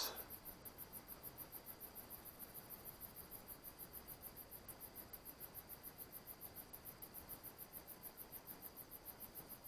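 Faint insect chirping: a rapid, even pulse of about six chirps a second over a steady high trill.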